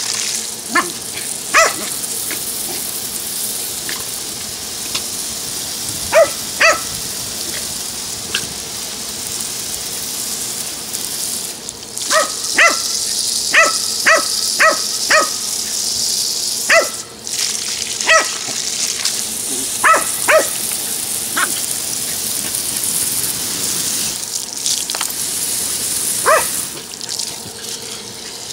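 Jack Russell terrier giving short, sharp barks, single or in quick runs, with a burst of about six in a row midway, over the steady hiss of water spraying from a garden hose.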